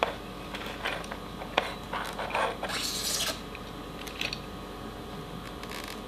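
A soldering iron and wire being worked on the terminal of a small LED circuit board on cardboard: small clicks and scrapes, then short hisses about three seconds in and near the end as the solder joint is made.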